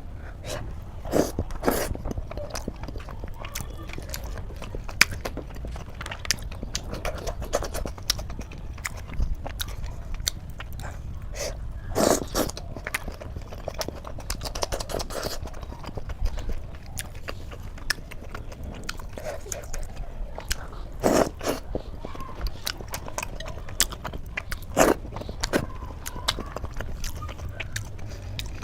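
Close-up eating sounds of a person chewing and biting aloo paratha with gravy: a run of short wet mouth clicks and smacks, with a few louder bites now and then.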